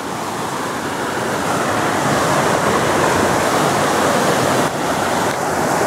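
Stream water rushing and splashing over rocks in a small cascade, a steady sound of flowing water that grows louder over the first second or so.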